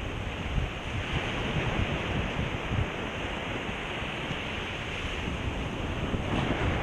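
Small surf waves washing and breaking on a sandy shore, a steady rushing wash mixed with wind buffeting the microphone.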